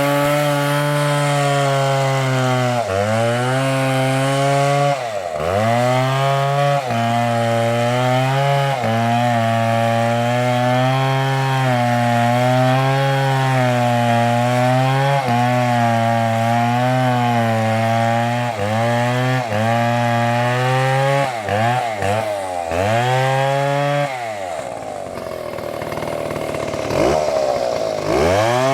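Large Stihl MS720 chainsaw cutting into a tree trunk at high revs, its engine pitch dipping and recovering every second or two as the chain bogs in the wood. Near the end the engine falls back for a few seconds, then revs up again.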